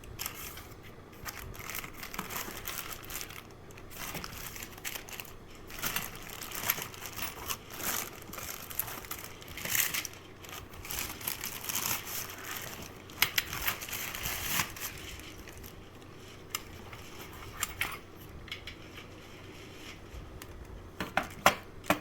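Plastic packaging crinkling and rustling as lock parts are unwrapped and handled, with scattered sharp clicks and knocks and a few louder clicks near the end.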